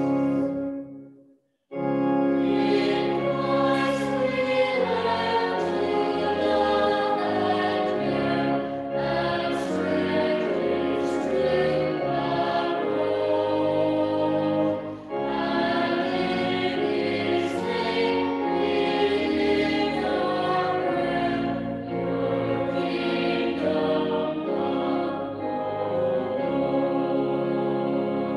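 Recorded choir singing a hymn with organ accompaniment. The music stops about a second in, at the end of one verse, and the next verse starts under a second later with long held chords.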